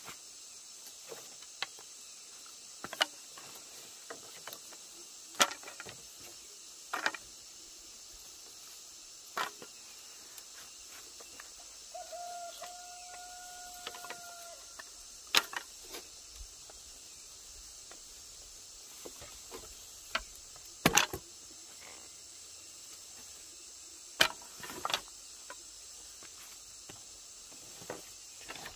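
Insects drone steadily outdoors, broken by a dozen or so scattered sharp knocks. Near the middle comes one long, level call lasting about two and a half seconds.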